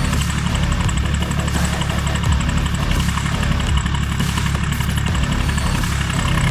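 Diesel engine of a Liebherr 926 excavator running steadily at a low, even pitch.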